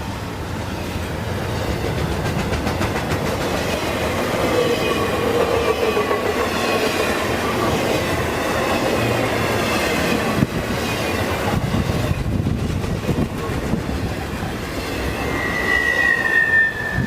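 Train cars rolling past with a steady rumble and clacking over the rails, and thin, high wheel squeal that drifts in pitch and is loudest near the end.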